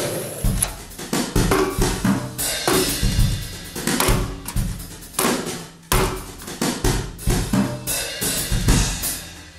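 Music with a drum-kit beat: bass drum, snare and cymbal hits.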